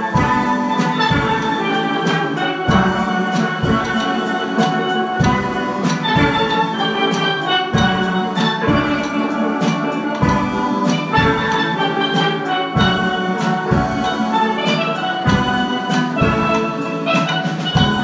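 Steel band playing: many steelpans sounding sustained, ringing melody and chord notes over a steady drum beat.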